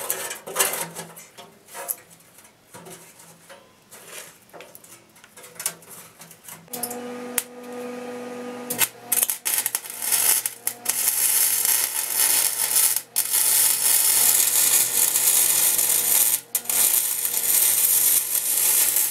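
Light metal clicks and taps as a steel mesh panel is handled. About nine seconds in, an arc welder starts: a loud, steady crackling sizzle of the arc welding the mesh to the mower's steel body, broken twice by short pauses.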